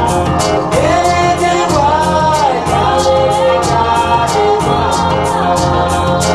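Gospel-style recorded music with choir singing over a steady bass and a beat of high ticks about four a second, played back through Triangle Magellan Quatro loudspeakers driven by Luxman tube amplification.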